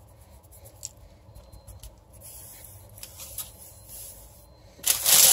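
Hands dusting flour over shaped bread dough on parchment paper: faint scattered taps and rustles, then a louder rustle of the paper near the end.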